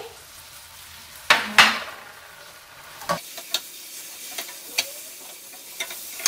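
Mirin poured into a hot pan of fried anchovies in a sugar and soy glaze, giving a brief loud sizzle about a second and a half in. A low sizzle then continues while a spatula stirs the anchovies, with light knocks of the spatula against the pan.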